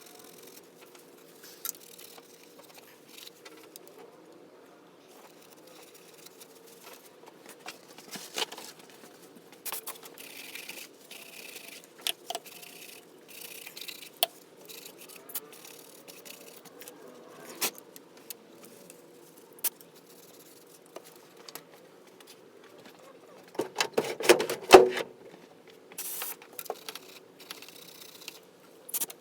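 Hand tools and metal engine parts being handled: scattered clicks and clinks, with a louder run of clattering about 24 seconds in.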